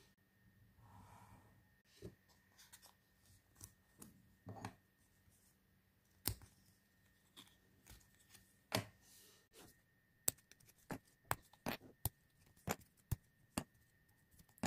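Die-cut card pieces being pressed out of a punch-out sheet and set down on a wooden table: a string of faint sharp clicks and snaps with a little rustling of the card, coming quicker in the last few seconds.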